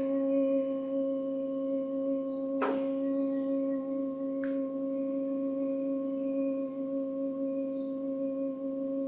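Singing bowl ringing with a steady sustained tone and overtones. A soft click comes in about three seconds in, and a brief higher one about a second and a half later.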